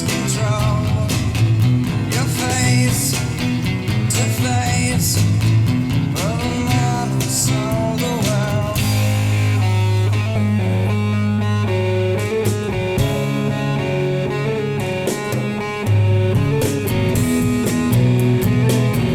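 Guitar-led blues-rock music played back through hi-fi loudspeakers: bending lead lines over bass and drums in the first half, then a long held bass note under chords for the rest.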